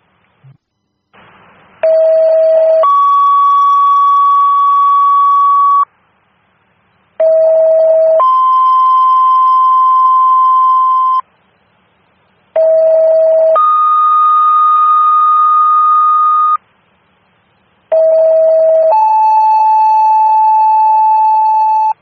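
Fire department dispatch paging tones over the radio: four two-tone pages in a row, each a short low tone of about a second stepping up to a higher steady tone of about three seconds. The second tone is pitched differently each time, alerting a different company's pagers to a new call.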